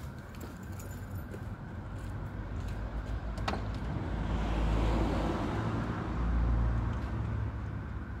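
Tofaş Doğan SLX i.e. four-cylinder engine running just after a cold start, its sound coming through an aftermarket 'pırpır' free-flowing exhaust as a deep, steady rumble. The rumble swells louder twice near the middle, with a single click a few seconds in.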